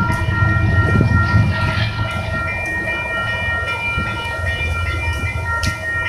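Railroad grade-crossing warning bell ringing steadily over the low rumble of a passing freight train. The bell stops just before the end as the crossing gates begin to rise.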